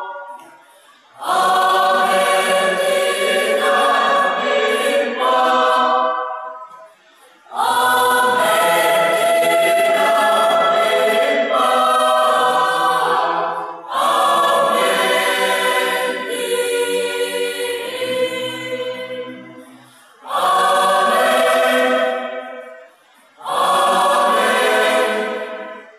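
Mixed choir of young men and women singing a gospel hymn unaccompanied, in phrases broken by a few short pauses for breath.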